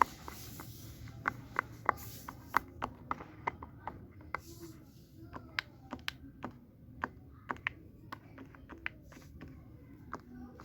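Fidget toys being handled: irregular small clicks and taps, a few a second, some louder than others.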